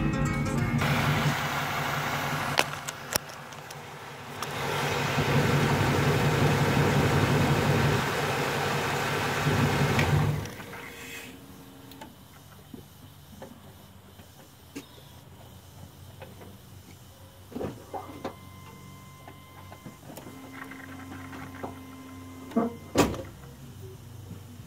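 GMC Yukon engine running to circulate freshly changed oil, then switched off about ten seconds in, the hum sinking away over the next second. Afterwards it is quiet, with a few light clicks and one sharp knock near the end.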